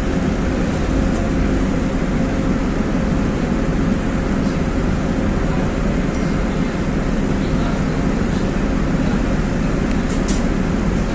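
Inside a LiAZ 5292.21 city bus under way: steady engine and road noise with a deep hum and a faint steady whine. A brief tick sounds about ten seconds in.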